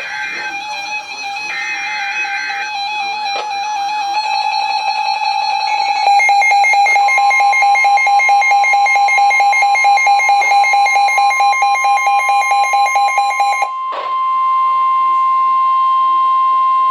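Emergency Alert System tones over a TV broadcast. Short screeching data bursts come first, then layered electronic alert tones with a rapid even pulsing that grow louder. About 14 seconds in, after a click, they give way to a single steady high tone that cuts off sharply.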